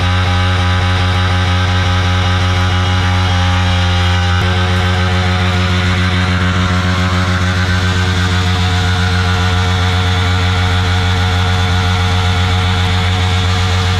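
Yamaha MT-15's 155 cc single-cylinder engine held at steady high revs during a burnout, the rear tyre spinning on the road. The engine note changes slightly about four seconds in.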